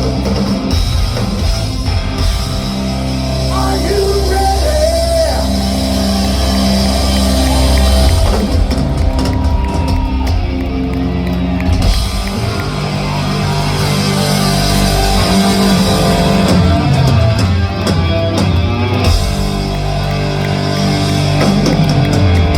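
Live rock band playing a loud, heavy rock song: electric guitar, bass and drums, with some gliding, bent notes over the top.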